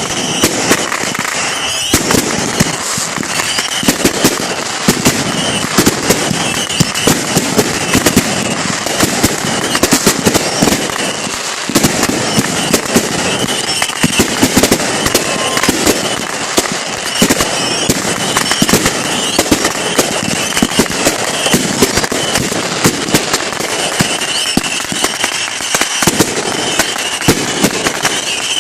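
Fireworks going off without a break: a dense, rapid crackle of pops and bangs.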